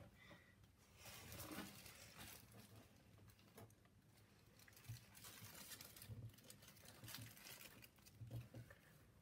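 Faint rustling and crinkling as string, tissue and a foam cup are handled for an egg parachute, with a few soft knocks on the desk.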